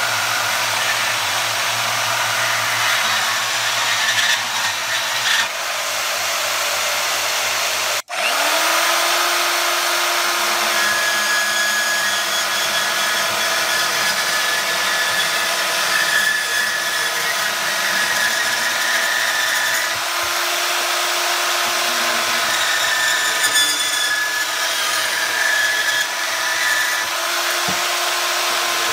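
Bauer 10-amp variable-speed portable band saw running and cutting metal, first through an aluminum extrusion. The sound breaks off about eight seconds in. The motor then spins up with a rising whine and runs steadily while the blade cuts through a metal pipe.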